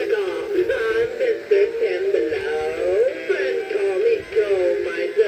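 Gemmy animatronic snowman's built-in speaker playing its Christmas song, a male voice singing a melody, thin with little bass.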